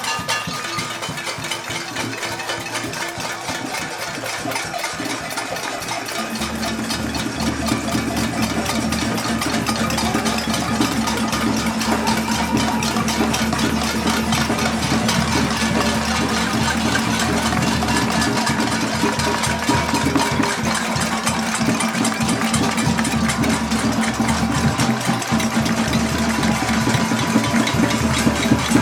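Din of a crowd's noise protest: a dense, continuous clatter of many things being banged at once. About six seconds in a steady low drone joins it and the whole grows louder.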